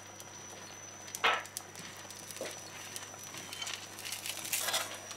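Pine nuts frying in a spoonful of oil in a frying pan, with faint sizzling and a few light scrapes and clicks of the stirring, the clearest about a second in.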